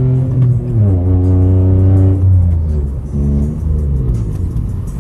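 Music with a heavy, deep bass, its low notes sliding down in pitch, played loud over a car audio system.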